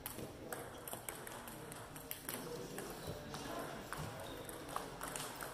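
Celluloid-type table tennis balls clicking off tables and bats in a sports hall: scattered, irregular clicks rather than a steady rally rhythm, with voices murmuring in the background.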